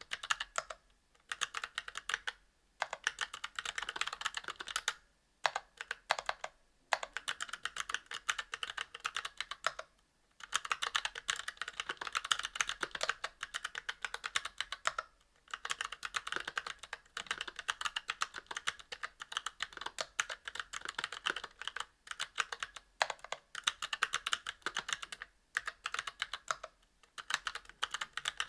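Fast typing on a mechanical keyboard with Kailh Box Crystal Royal tactile switches, brass plate and GMK doubleshot ABS keycaps: dense runs of keystroke clacks broken by short pauses, with the occasional deeper thock of a lubed plate-mounted stabilized key.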